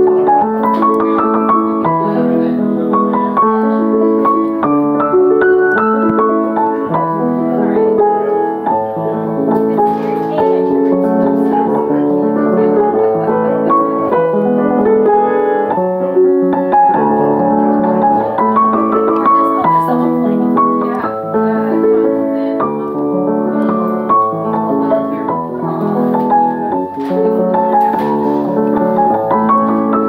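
Piano being played continuously: many separate notes in the upper part over lower sustained notes and chords, without a break.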